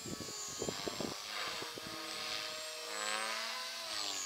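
Thunder Tiger Mini Titan E325 V2 electric RC helicopter in flight, its motor and rotor whine sliding up and down in pitch as it manoeuvres. A few brief thumps come in the first second.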